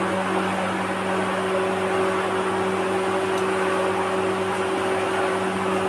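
Steady electrical hum with a hiss over it from a powered-up bandsaw blade butt welder, holding at one level throughout.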